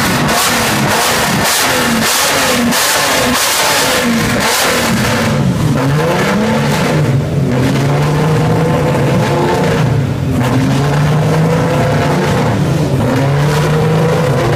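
Nissan Skyline 2000GT-R race car's S20 straight-six warming up: a quick run of throttle blips, each rising and falling sharply, for the first few seconds, then longer revs that settle into a steady run with small wavers for the second half.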